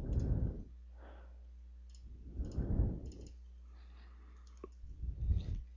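Faint computer mouse clicks and keyboard taps as a dimension value is entered in the CAD program, over a steady low electrical hum. Three soft low puffs of noise, near the start, in the middle and near the end, are the loudest sounds.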